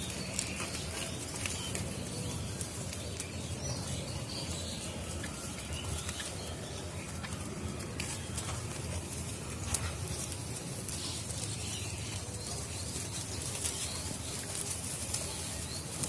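Steady outdoor background noise with faint, scattered bird chirps and a few sharp clicks.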